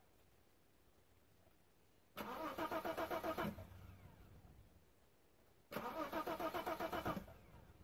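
Bitter SC's 3-litre straight-six cranked on the starter motor in the cold, in two pulsing bursts of about a second and a half each, three and a half seconds apart, without catching. This is a hard cold start that takes many attempts.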